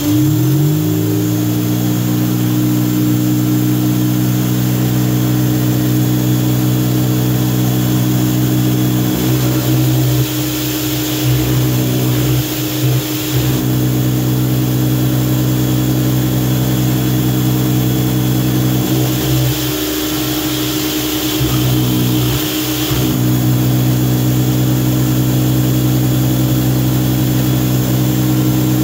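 Greenworks 2000 psi pressure washer starting up and running steadily, its spray hissing into the surface-cleaner tray washer. The pump settles to speed within about a second, and the spray turns harsher twice for a few seconds.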